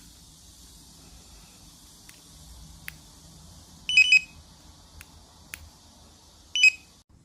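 Magic Car Gold 6 car alarm remote being tested after contact-cleaner repair: a few sharp button clicks and loud short electronic beeps, a quick double beep about four seconds in and a single one near the end, over a faint steady hiss.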